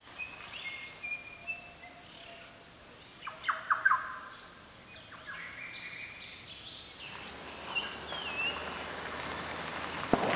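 Wild birds calling: short whistled notes, a loud cluster of chirps about three to four seconds in, then a whistle and a falling call near the end. Under them is a steady high hiss that fades about seven seconds in.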